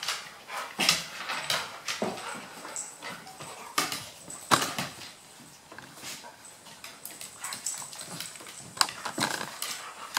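A Maltese and a Golden Retriever play-fighting on a wooden floor: irregular clicks and knocks of paws and claws on the boards, with dog sounds between them. The sharpest knocks come about a second in and twice around four to four and a half seconds in.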